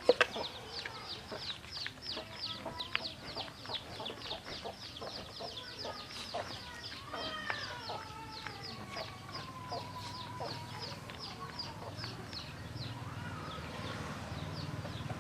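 Chickens calling: a fast, even run of short high chirps, about four a second, that thins out near the end, with lower clucking notes mixed in.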